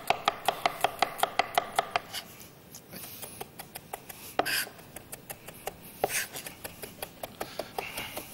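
A chef's knife finely chopping garlic and flat-leaf parsley on a wooden cutting board, in fast, even strokes of about five a second. About two seconds in the chopping turns slower and quieter, with a couple of louder single strokes, then quickens again near the end.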